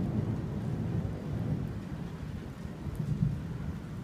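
Thunderstorm: a low, continuous rumble of distant thunder with a faint hiss of rain.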